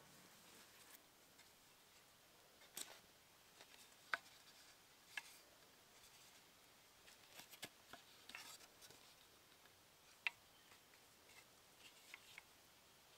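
Faint, irregular handling clicks and knocks from a wooden bucksaw being assembled: the wooden frame pieces and the twisted-cord tensioner being wound tight with a toggle stick, about eight separate clicks in all.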